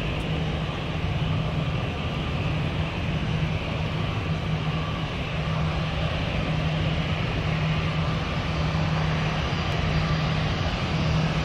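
Jet airliner engines running steadily: an even rush of noise with a low, steady hum underneath.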